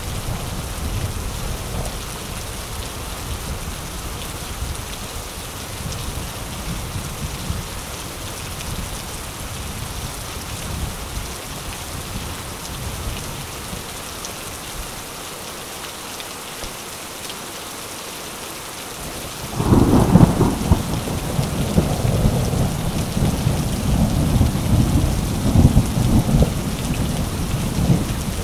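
Steady rain with low rolling thunder. About two-thirds of the way through, a sudden loud thunderclap breaks in and rumbles on.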